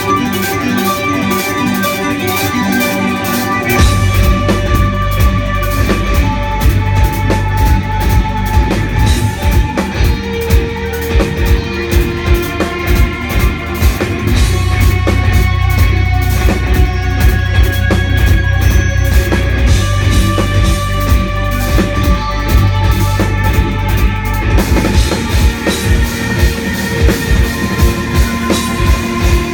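Live instrumental rock band playing, with electric guitars holding long notes over a drum kit. About four seconds in, the drums and heavy low end come in and the full band plays on with a steady beat.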